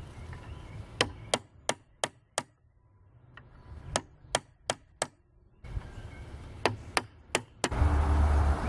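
Sharp knocks of a hammer striking, in three quick runs of five, four and four blows at about three a second.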